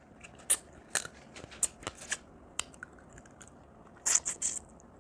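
Boiled crab shell being cracked and picked apart by hand: a string of sharp cracks and clicks, with a quick cluster of them about four seconds in.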